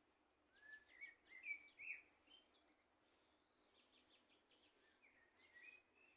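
Faint bird song: a short phrase of whistled, gliding notes about half a second in, a second phrase near the end, and fainter high chirps between them.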